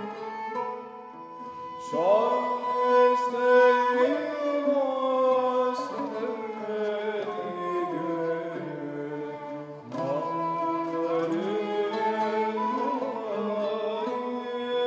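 Ottoman classical music in Hicaz makam, performed on lafta and classical kemençe with a voice singing an ornamented, sliding melody. Sharp new phrases enter with rising glides about two seconds in and again near the ten-second mark.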